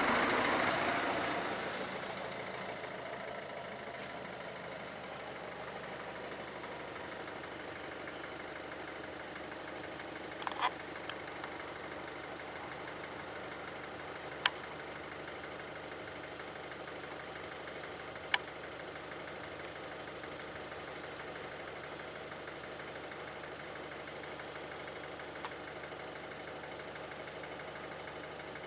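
An engine idling steadily, with a few isolated sharp clicks. At the start a louder vehicle sound fades away over about two seconds.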